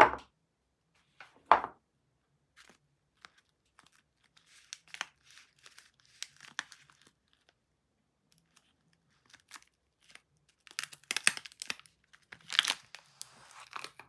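A bar of soap knocked down onto a pile of other bars twice near the start, then soft handling rustles. Over the last few seconds a paper soap wrapper is torn open and crinkled off the bar.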